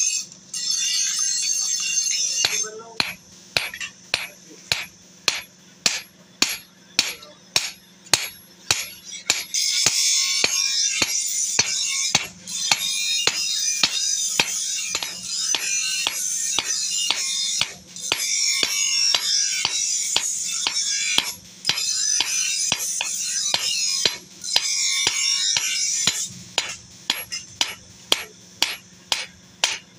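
Hand hammer beating a red-hot steel chaff cutter blade on an anvil: a steady run of sharp metal-on-metal strikes, about three a second. Background music plays over the strikes, heaviest through the middle.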